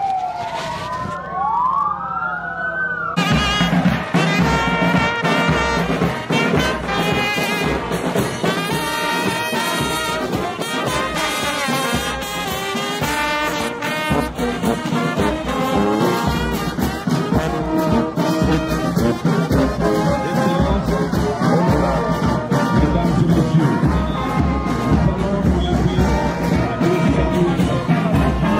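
Ambulance sirens wailing, rising and falling, for about three seconds, then a sudden cut to a brass band playing: trombone, baritone horns and a sousaphone.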